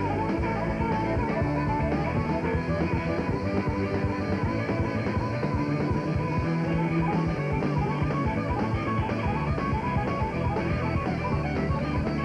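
Live blues-rock band playing: a harmonica lead with a wavering, bending line over electric guitar, bass and drums.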